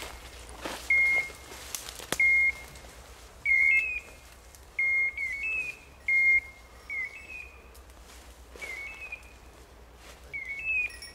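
A hunting dog's beeper collar sounding short, high beeps at about one a second. Several come as a two-note pair, the second note slightly higher.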